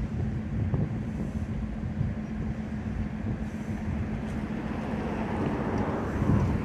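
Steady low mechanical rumble with a constant low hum, like an engine running nearby.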